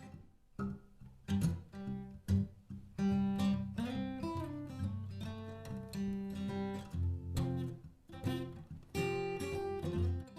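Acoustic guitar music, with chords strummed and picked.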